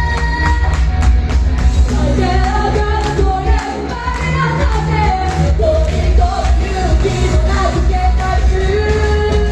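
Live pop-rock band playing with a singer: a steady drumbeat and heavy bass under a sung melody.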